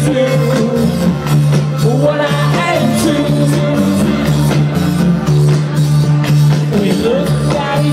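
Live band playing through a large outdoor PA: electro-pop with a singer, a steady repeating bass line, guitar and drums, heard from within the crowd.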